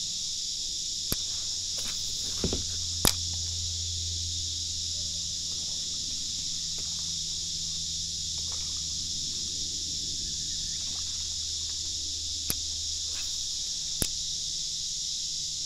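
Steady, high-pitched insect chorus, with a low steady hum beneath it and a few sharp clicks, a cluster about two to three seconds in and two more near the end.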